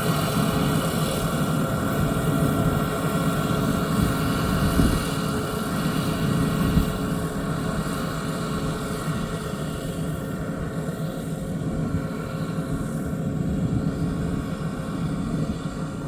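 Yanmar YH6115 six-row combine harvester running steadily, a continuous engine drone with a steady hum of tones that grows fainter over the second half.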